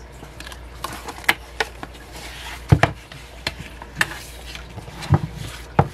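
Hands handling a CD album's paper and card inserts and photocards: a string of light taps and clicks with soft rustling, and a few sharper knocks, the loudest about three seconds in and just before the end.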